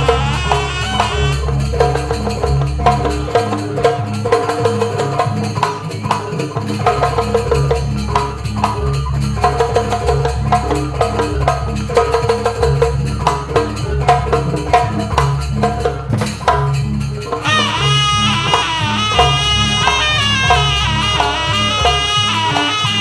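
Live Javanese gamelan music in fast sampak style: repeating drum and gong patterns under a wavering wind-instrument melody, which comes in loud and strong about 18 seconds in.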